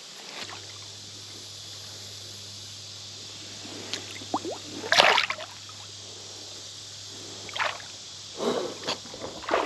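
Creek water splashing and dripping in several short bursts, the loudest about five seconds in, over the steady run of the stream.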